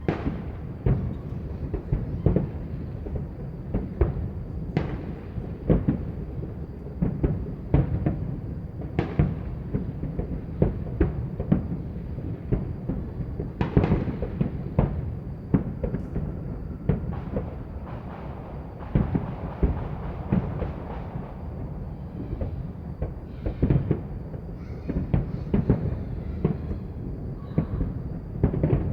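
Many fireworks and firecrackers going off at once from several directions: an unbroken, irregular stream of sharp bangs and deeper booms, several a second, over a low rumble.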